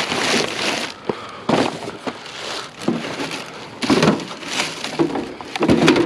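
Hands rummaging through curbside junk and plastic items, with irregular rustling, clattering and crunching and a few sharp clicks.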